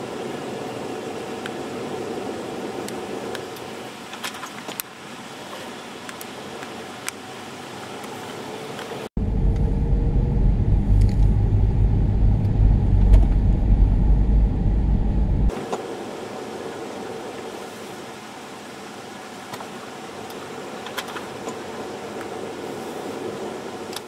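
A car running, heard from inside its cabin, with faint scattered ticks. About nine seconds in, a much louder deep rumble of the car driving on the highway cuts in for some six seconds, then cuts back to the quieter steady sound.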